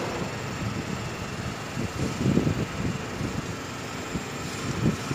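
Steady background hum, with a few dull knocks of hand work around two seconds in and again near the end as a locking pin is fitted into the belt tensioner plate.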